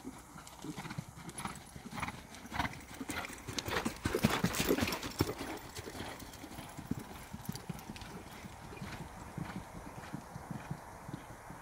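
Hoofbeats of a ridden ex-racehorse cantering on arena sand, a regular beat of soft thuds that grows loudest about four to five seconds in as the horse passes close, then continues more softly.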